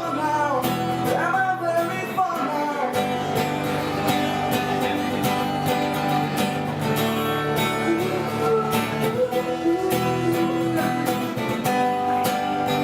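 Background music led by strummed acoustic guitar, with a steady beat.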